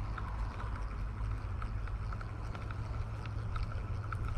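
Wind buffeting the microphone: a steady low rumble, with faint scattered ticks above it.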